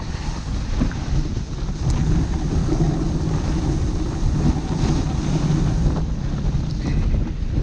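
Wind rushing over the microphone, mixed with the steady rumble of a dog sled's runners gliding over packed snow as two huskies pull it along the trail.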